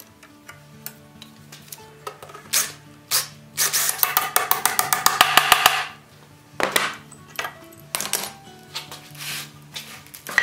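Metal hand tools clicking and clinking against iron hardware as a nut is worked onto a bolt through an iron plate on a sled runner, with a dense run of rapid clicks lasting about two seconds near the middle and a sharp metal knock at the end. Soft background music runs underneath.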